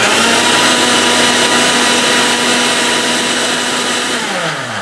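Electric blender grinding dry semolina into powder. The motor starts abruptly, runs at a steady pitch, and winds down with a falling pitch near the end.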